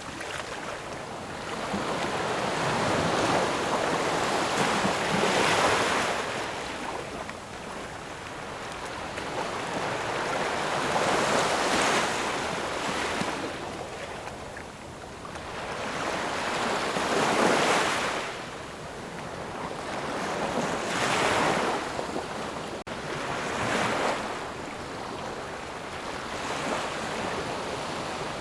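Ocean surf: waves rolling in and washing back, the rush of water swelling and fading about five times, every four to six seconds.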